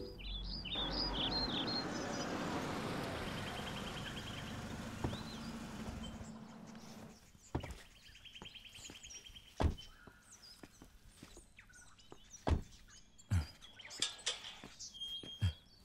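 Small birds chirping and trilling over a rushing background noise that fades out after about six seconds. After that come a handful of sharp knocks and clicks, the last of them from the metal gate being handled.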